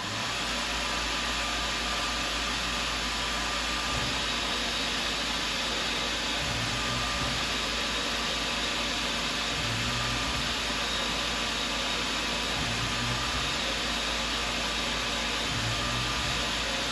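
Tormach CNC mill running a mill-turning cut with the stock spinning in the spindle: a steady, loud hiss of machine noise. A low hum swells and fades about every three seconds.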